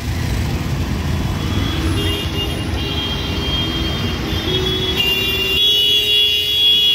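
Jammed city traffic heard from an auto-rickshaw: its small engine idles with an uneven low rumble while vehicle horns sound around it. Near the end the rumble drops away and one horn is held in a long, steady tone.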